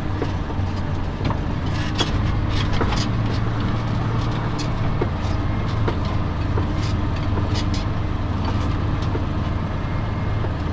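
A vehicle's engine running steadily, heard from inside the cab, with scattered light clicks and rattles.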